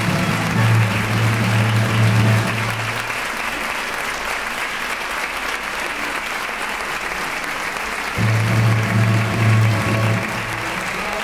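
Audience applauding over a live pit orchestra playing the closing music. Low bass notes pulse under the music for the first three seconds, drop out for about five seconds while the applause goes on alone, then come back near the end.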